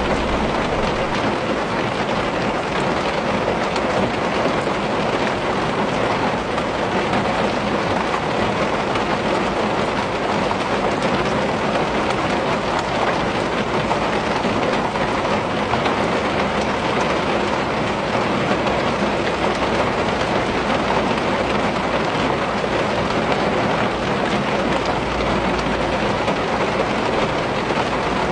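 Steady rain falling on a window pane, an even hiss of drops with no letup.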